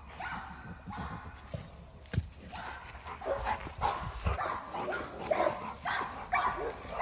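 French bulldogs barking and yipping in short repeated calls that come faster in the second half. A single sharp knock sounds about two seconds in.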